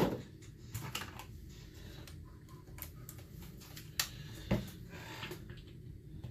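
Scattered clicks and light metal knocks of hand tools working on a McCulloch CP125 chainsaw's auto oiler, with a sharp knock at the start and a couple more about four seconds in.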